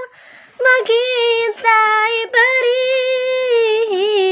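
A woman singing unaccompanied, holding long, wavering notes, with a quick breath taken about half a second in.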